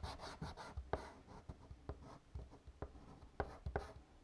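Fingertips rubbing soft pastel into paper: a quick run of short scratchy strokes for about the first second, then a few separate light scrapes and taps.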